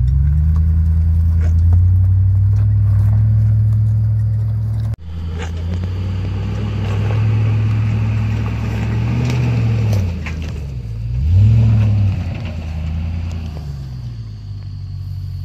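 Land Rover Discovery 2 engine running at low speed as the truck crawls over rock, with an abrupt change in the sound about five seconds in. The engine note rises and falls a few times about two-thirds of the way through.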